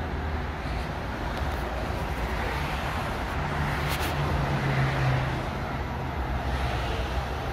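Steady road traffic rumble, with a Transperth A-series electric train approaching along the line. A low hum comes in about three and a half seconds in, and there is a single sharp click about four seconds in.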